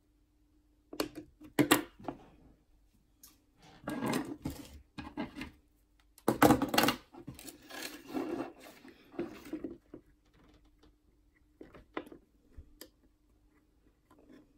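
Handling noise from hands and small tools working on a guitar pickguard's wiring: clusters of small clicks, taps and rustles with short pauses between, the loudest a little past the middle. A faint steady hum runs underneath.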